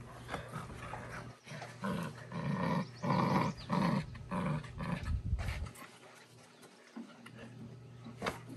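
Dogs growling in play while tugging on a rope toy: a run of short growls about two a second through the middle, dying down near the end.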